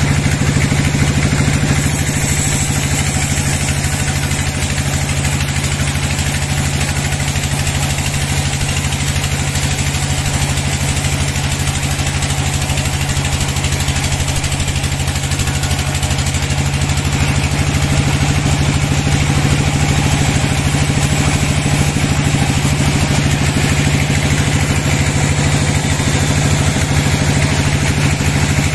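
Large vertical band sawmill running, its blade cutting lengthwise through a long slab of timber, over a steady, loud drone from the mill's drive.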